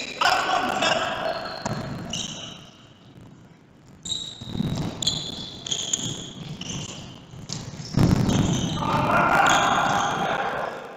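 Futsal ball kicked and bouncing on an indoor court floor, with sharp knocks about three times, amid short high squeaks of players' shoes on the court and players' shouts.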